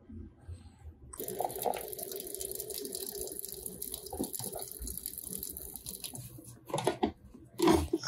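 Hot water streaming from a Bonavita BV1900TS coffee maker's shower head into the filter basket, starting suddenly about a second in as the brew begins. A few short knocks come near the end.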